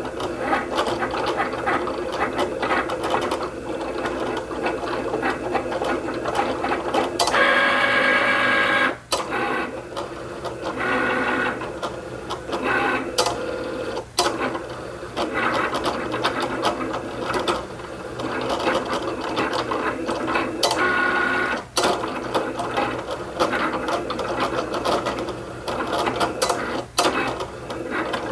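Cricut Explorer Air 2 cutting machine running a cutting pass: its carriage and roller motors whirr and buzz in short, changing runs as the blade traces the sticker outlines, with brief stops between moves. A louder, higher whine comes about seven seconds in.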